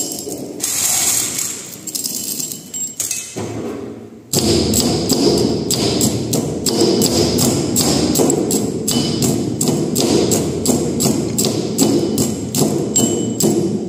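Steel tamping rod striking crushed stone aggregate in a small cylindrical steel measure, compacting a layer with 25 blows for an aggregate impact test. A few irregular knocks at first, then a steady run of blows at about two to three a second from about four seconds in.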